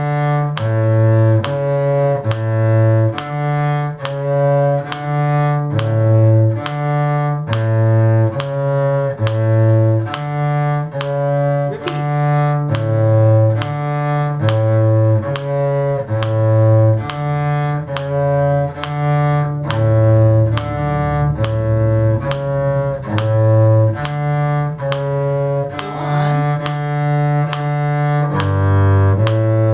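Low bowed string instrument playing the bass line of a tune counted in six, mostly long low notes changing about once a second, with higher notes held above it.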